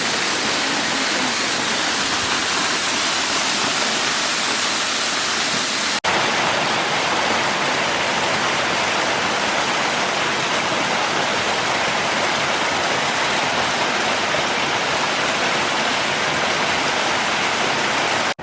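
Waterfall and stream water rushing in a loud, steady roar that briefly cuts out about six seconds in.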